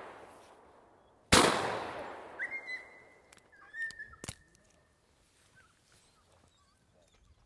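A single shotgun shot about a second in, fired at a flushed game bird; its report dies away over about two seconds. A thin, high whistled note follows for a couple of seconds, with a sharp click partway through it.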